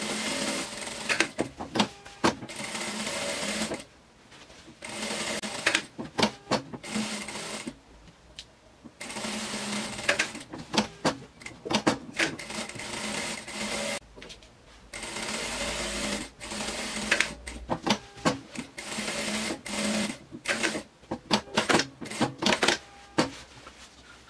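Industrial sewing machine stitching a seam around the edge of layered fabric, running in stretches of a few seconds with short stops in between as the work is turned.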